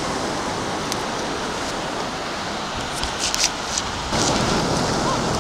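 Steady wash of surf and shallow water over a rocky beach, growing louder about four seconds in, with a few faint clicks past the middle.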